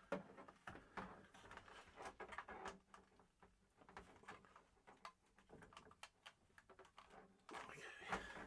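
Faint scattered clicks and light knocks of hands fitting plastic RV shower faucet parts back into place, with a brief rustle near the end.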